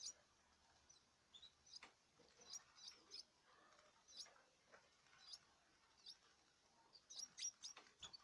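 Young canaries chirping faintly in short, high cheeps, scattered irregularly, with a couple of soft clicks.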